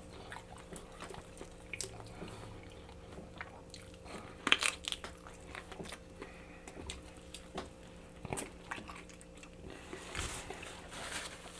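Close-miked mouth sounds of a person eating sauced chicken wings: chewing and biting with scattered wet clicks and smacks, the loudest bite about four and a half seconds in and a few more near the end.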